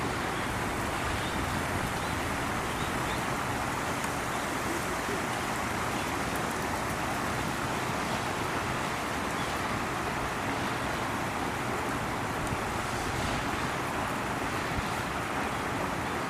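Steady outdoor background noise: an even rushing hum with no distinct events, the kind of mix of wind, distant traffic and far-off activity heard in an open-air enclosure.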